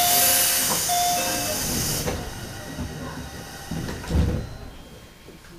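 Sudden loud hiss of compressed air released on a JR Central 211 series electric train car, fading after about two seconds. A low thump follows about four seconds in.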